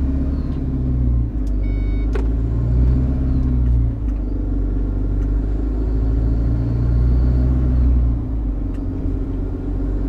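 Iveco Eurocargo lorry's diesel engine heard from inside the cab, pulling away and accelerating through the gears: the engine note rises, then drops briefly at each of three gear changes.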